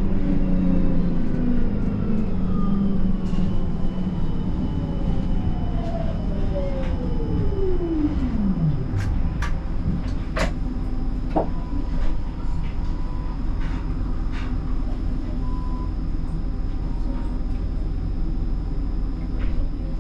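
Siemens Combino tram's electric drive whine falling steadily in pitch as the tram brakes, dying away about nine seconds in as it comes to a stop. Then a steady low hum from the standing tram, with a few sharp clicks.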